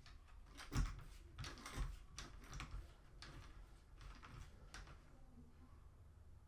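A run of short clicks and taps on a laptop, such as keys being pressed or the machine being handled, with two louder knocks about one and two seconds in, stopping after about five seconds.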